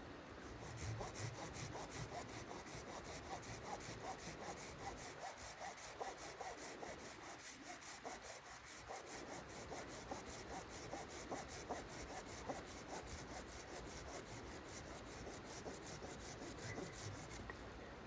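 Rhythmic rasping on wood, a steady run of quick repeated strokes, faint, with a short lull midway.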